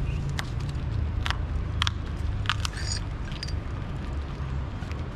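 A package being handled and opened, likely cut with a blade: scattered sharp clicks and crackles of packaging over a steady low rumble.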